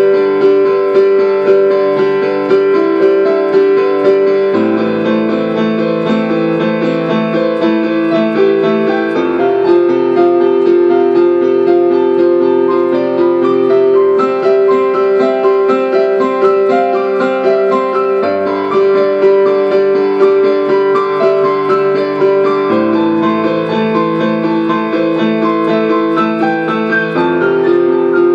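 Solo piano improvisation: a steady flow of sustained, overlapping notes over low bass notes that change about every four to five seconds.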